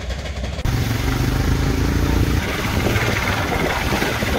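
Motorcycle engine running with a steady hiss over it. The sound changes abruptly just under a second in and grows louder and fuller.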